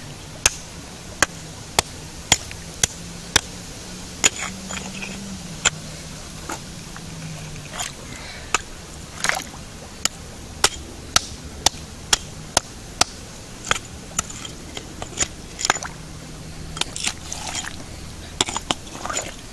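Geological hammer (rock pick) striking limestone again and again as it chips under a fossil crinoid. Sharp, short cracks come about one to two a second, with a few brief pauses.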